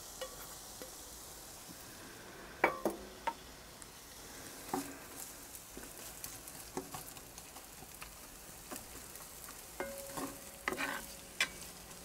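Chopped onions sizzling in hot oil in a cast-iron Dutch oven, stirred with a wooden spoon that knocks against the pot now and then. The loudest knock comes about a third of the way in, with a cluster of knocks near the end.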